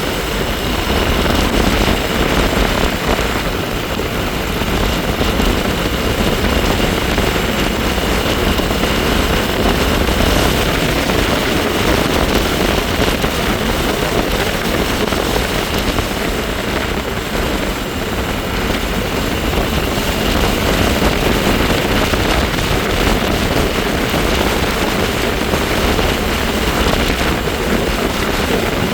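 Wind rushing over the microphone while riding a bike, with the bike's steady high whine running underneath.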